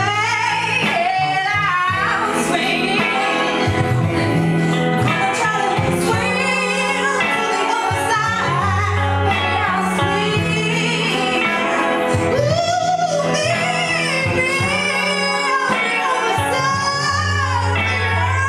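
A woman singing lead vocals into a microphone with a live band behind her. Sustained low bass notes change every couple of seconds under the sung melody.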